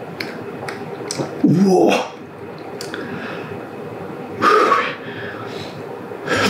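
A man's throaty vocal exhale right after a big gulp of beer, about one and a half seconds in, followed by a second, breathier exhale a few seconds later.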